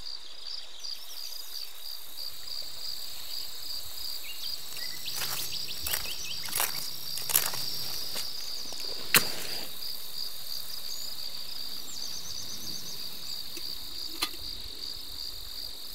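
A steady, high-pitched chorus of crickets and other insects. Several sharp clicks or knocks come about five to nine seconds in, and one more near the end.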